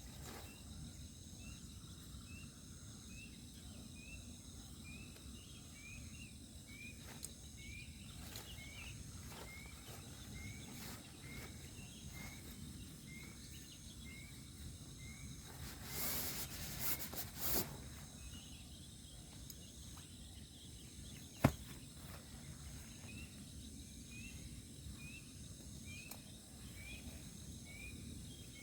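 Night insect chorus: several steady high-pitched trills, with a short rising chirp repeating about once a second. A brief rustle comes around the middle and a single sharp click a few seconds later.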